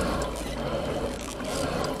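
Water splashing and trickling along the hull of a pedal fishing kayak under way, steady throughout with a few faint ticks.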